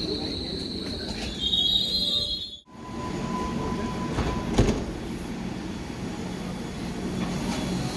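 Hamburg U-Bahn train moving through an underground station with a steady high squeal that grows louder for a moment about two seconds in. After a sudden break, another U-Bahn train rolls along the platform with a low rumble, a short steady tone and a single knock about halfway through.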